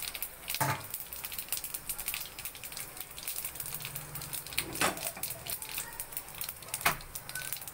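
Cumin seeds frying in hot oil in a kadhai: a rapid, steady crackle and sizzle, with three louder clicks, about a second in, near the middle and near the end.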